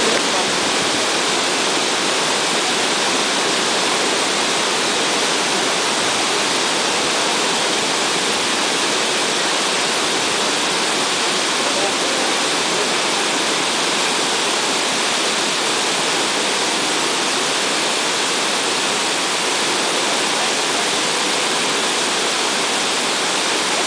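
Waterfall pouring over a rock face: a steady, loud rush of white water.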